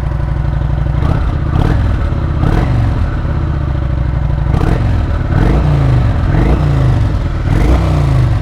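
Kawasaki Vulcan 900's V-twin engine, on its stock exhaust, being revved several times, the pitch climbing and dropping back with each blip of the throttle.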